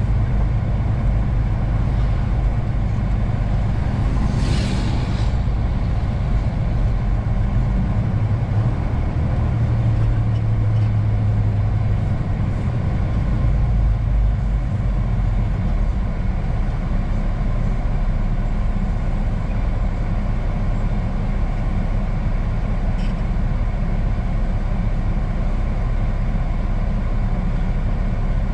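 A truck's engine and road noise heard from inside the cab while driving: a steady low rumble, with the engine note swelling briefly near the middle. A short hiss comes about four seconds in.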